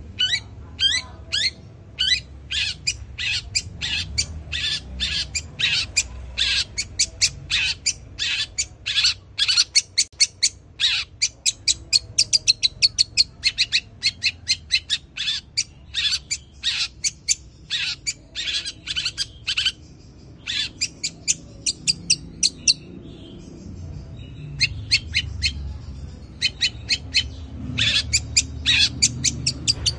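Caged long-tailed shrike (cendet) singing a fast run of sharp, falling chirps, about three a second, in its imitation of sparrow (burung gereja) calls. The chirps thin out about two-thirds of the way through, then come thick again near the end.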